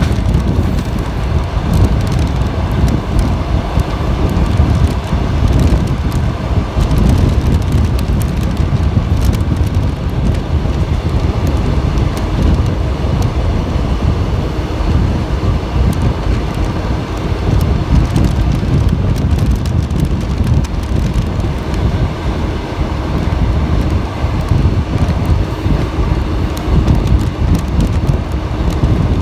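ET2 electric multiple unit running along the track, heard from its cab side window: a steady rumble of wheels on rails mixed with heavy wind buffeting on the microphone.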